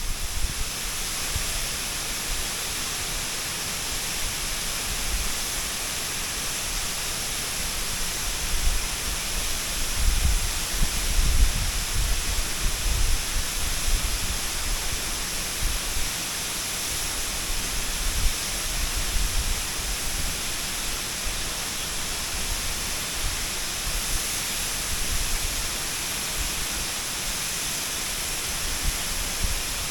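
Waterfall: a steady, dense rush of falling water, with low rumbling swells for a few seconds around the middle.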